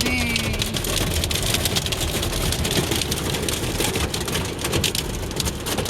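Small hailstones pelting the car's body and windshield in a dense, rapid patter of clicks, heard from inside the cabin over the low rumble of the car.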